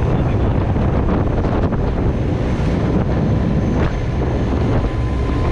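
Wind buffeting the microphone inside an open-sided jeep driving at road speed, over the steady rumble of the vehicle.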